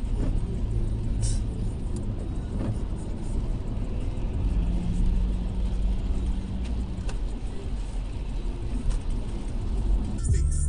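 Inside a moving car's cabin on a wet highway: a steady low rumble of road and engine noise picked up by the dash cam, with a faint hum for a couple of seconds near the middle.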